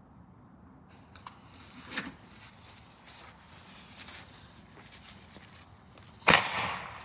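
Small firework going off inside a toy washing machine: a hissing, crackling fizz with scattered pops, then one sharp bang about six seconds in.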